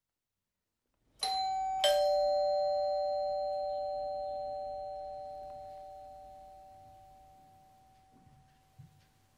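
Two-tone ding-dong doorbell chime: a higher note, then a lower one, both ringing out and fading slowly. Near the end, a few soft footsteps in socks on a wooden floor.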